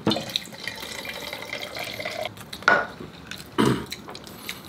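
A drink being poured into a glass, a steady pouring sound for about two seconds, followed by two short louder sounds.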